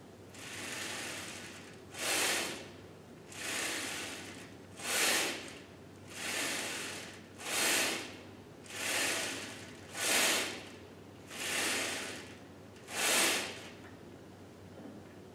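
A man breathing in and out in time with leg press repetitions. About five breath cycles, each a softer, longer breath followed by a shorter, sharper one, roughly every two and a half seconds.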